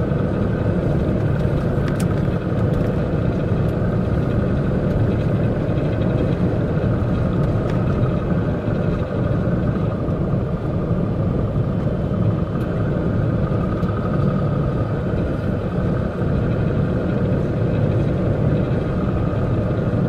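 Steady cab drone of a MAN concrete mixer truck cruising on the open road: diesel engine and tyre noise heard from inside the cab.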